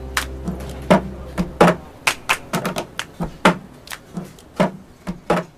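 A string of sharp, irregular clicks and knocks, about three a second, while the held notes of music fade out in the first second.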